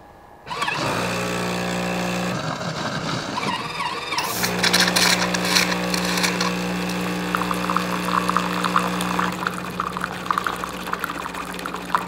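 Jura S8 Chrome super-automatic espresso machine starting a hot-water cycle: its pump starts up about half a second in with a steady hum. From about four seconds in, hissing and crackling join the hum.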